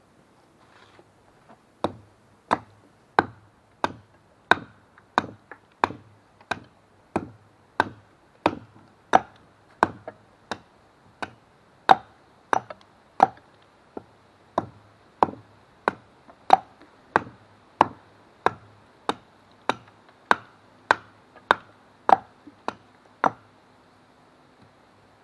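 Marbles Hudson Bay pattern hatchet chopping wood: a steady run of sharp strikes, about three every two seconds, that stops near the end.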